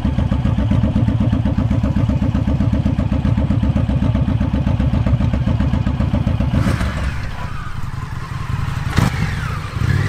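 Indian FTR 1200 motorcycle's V-twin engine running at low speed with a rapid, steady low pulsing beat. About two-thirds through, the sound changes to a lighter engine rising and falling in pitch, with one sharp knock near the end.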